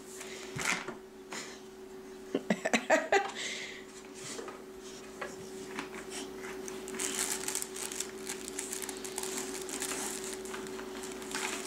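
Plastic baby toy clicking and clattering on a wooden floor as it is handled, a cluster of sharp knocks in the first few seconds, then softer scratchy rustling, over a steady low hum.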